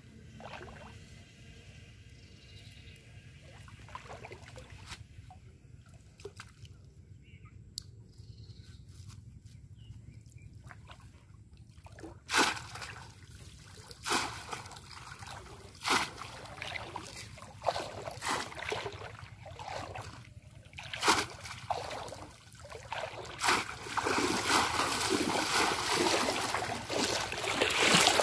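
Shallow muddy floodwater being waded through and struck with a bamboo polo fish trap: faint trickling at first, then sharp splashes every second or two from about halfway, building into continuous sloshing near the end.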